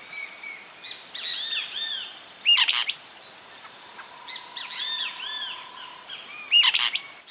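Several wild birds singing at once, among them the white-shouldered fire-eye and the highland elaenia: runs of repeated arched whistled notes, a steady whistle midway, and two loud sharp calls about four seconds apart.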